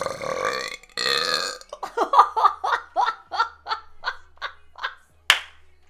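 A woman burping loudly after drinking soda: a long drawn-out belch, a second shorter one, then a run of short choppy pulses at about three to four a second. A sharp click near the end.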